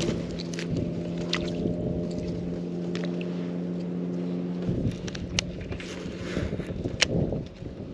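A boat's electric trolling motor humming steadily, which cuts off about halfway through. A few sharp clicks and light splashy rustling sound over and after it.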